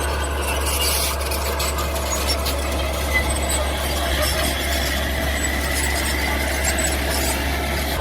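Mini bulldozer running steadily, its engine droning under a squeal and scattered light clanks of metal.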